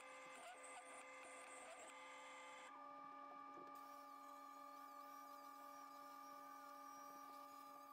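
Near silence: a faint steady electrical hum.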